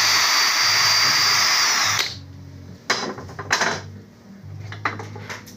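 Cordless drill spinning a non-woven abrasive (Scotch-Brite type) wheel against the belt face of a Honda PCX125's front variator pulley, running steadily with a high whine, then winding down and stopping about two seconds in. The abrasive takes the belt glaze off the pulley so the belt grips without slipping. A few short scrapes and knocks follow.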